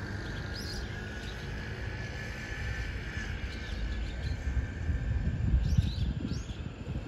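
Outdoor ambience: a few short bird chirps over a steady hiss, with a low rumble that grows louder in the second half.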